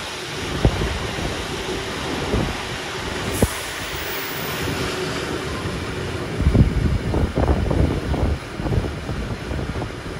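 Riding inside a heritage steam-hauled passenger carriage (7ABE): the carriage wheels running on the rails with a steady rumble and scattered knocks, then a run of heavier knocks and rattles about six seconds in.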